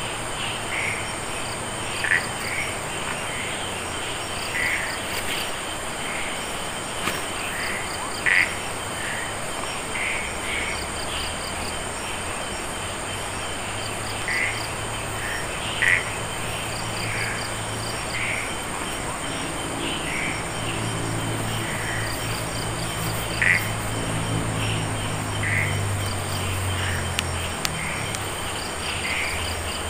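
Night chorus of frogs and insects: short frog calls every second or two over a steady high insect drone and pulsed insect trills. A low hum comes in about a third of the way through and fades near the end.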